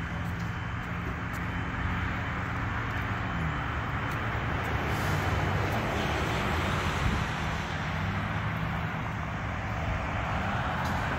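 Steady low engine hum under a continuous rushing noise of motor-vehicle traffic.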